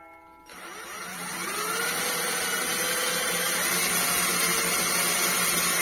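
Cordless drill spinning up with a rising whine about half a second in, then running steadily under load as a titanium-plated hex-shank tap-drill bit bores into a steel square tube.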